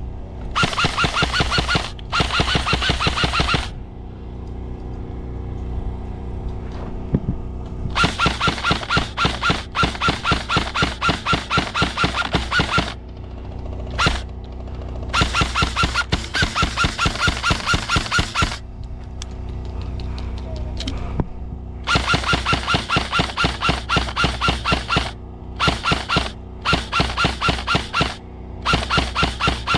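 Airsoft guns firing in rapid bursts of evenly spaced shots, each burst one to four seconds long, with short pauses between.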